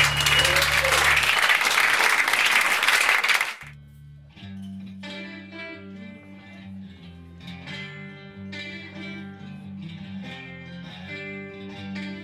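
A loud, noisy passage like applause, with a brief whistle, stops abruptly about three and a half seconds in. A guitar then picks slow single notes over a low sustained note.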